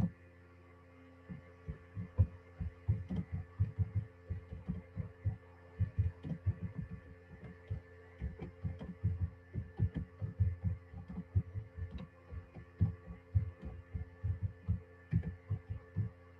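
Computer keyboard typing heard as a run of dull low thuds, several a second in uneven bursts, starting about a second in, over a steady electrical hum.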